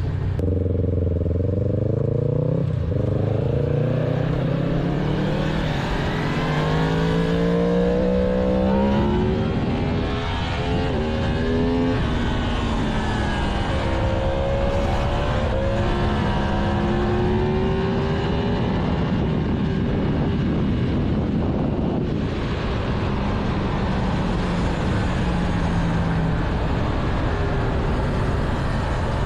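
Yamaha MT-10's crossplane inline-four on its stock exhaust, heard while riding. Over the first ten seconds or so it pulls up through the gears, its pitch climbing and dropping back at each shift. It then varies with the throttle and settles to a steadier cruise under a rushing noise from about two-thirds of the way in.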